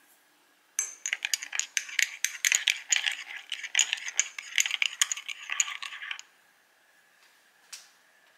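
A metal teaspoon stirring espresso in a small ceramic cup, clinking rapidly against the cup's sides. It starts about a second in, runs for about five seconds and then stops.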